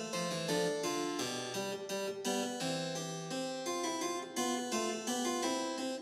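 Instrumental background music: a keyboard piece with a harpsichord-like sound, playing a quick, continuous run of notes.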